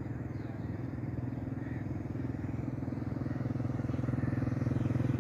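A small engine running with a steady low drone that grows slightly louder toward the end, typical of a motorcycle approaching on the road.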